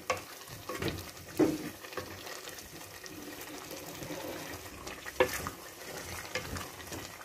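Wooden spoon stirring chicken pieces through a wet, sizzling masala in an aluminium pot, with a few sharper scrapes of the spoon along the pot.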